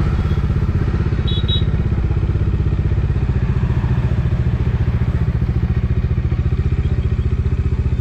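Bajaj Dominar 400's single-cylinder engine running at a steady cruise, heard from on the moving motorcycle, its exhaust pulses rapid and even.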